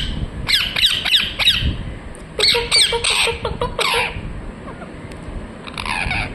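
Pet parrot squawking in quick runs of sharp, falling screeches: two bursts of several calls each, then a single call near the end.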